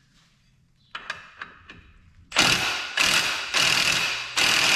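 Cordless impact wrench with a 15 mm socket hammering in several short bursts, each under a second, on the bolt of a Polaris RZR XP 1000's secondary clutch to loosen it. A few light clicks come just before the first burst.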